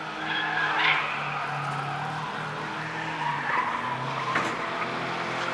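Skoda Fabia competition car's engine running hard, its note rising and falling, as it is driven through a corner with tyres squealing twice: about a second in and again near four seconds.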